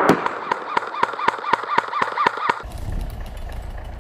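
Electric airsoft rifle fired in rapid semi-auto, about four shots a second, each with a sharp click and a short motor whine. After about two and a half seconds the shots stop and the low, steady engine noise of an approaching military truck takes over.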